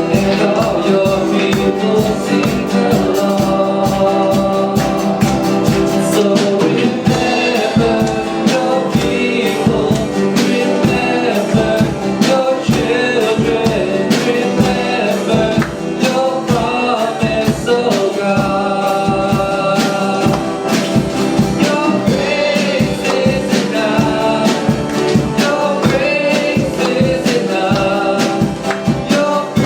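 A church worship band playing and singing a worship song with a steady beat.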